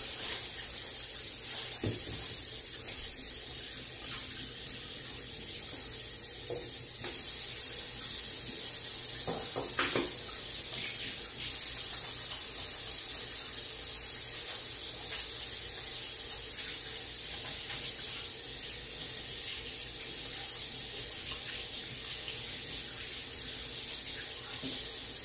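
Kitchen sink tap running steadily, water pouring into the sink, with a couple of light knocks.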